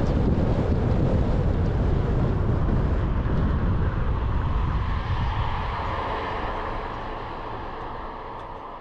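Car driving, heard as a steady rumble of road and wind noise with wind buffeting the microphone, fading out gradually over the last few seconds.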